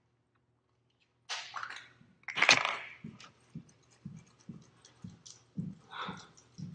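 Handling noise close to a phone's microphone: a rustle, then one sharp crack or crunch about two and a half seconds in, followed by soft low knocks about twice a second.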